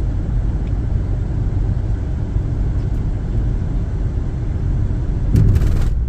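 Steady low rumble of tyre and road noise with engine hum, heard inside a car's cabin while it drives at speed. A brief louder noise comes just before the end.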